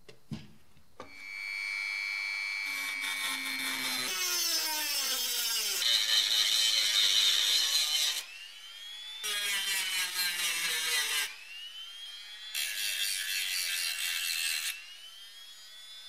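Handheld rotary tool with an abrasive cut-off wheel starts about a second in with a steady high whine, then grinds off rivet heads in three bursts. Its motor pitch drops under load and climbs back in the pauses between bursts.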